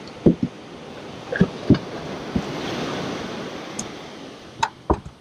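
Ocean water washing, with a steady rush that swells a little in the middle. About seven short, sharp knocks and thumps are scattered through it and stand out as the loudest sounds.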